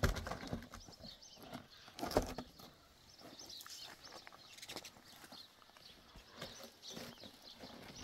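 Firewood being handled: logs knocking and scraping against each other, with a heavier thump at the start and another about two seconds in, amid scattered smaller knocks.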